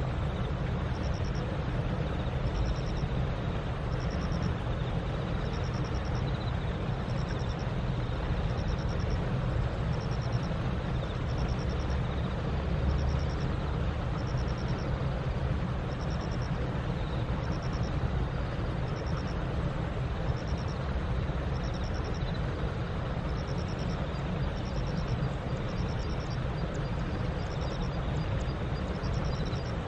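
Steady low rumble of distant road traffic, with a faint high pulsed chirp repeating about once a second.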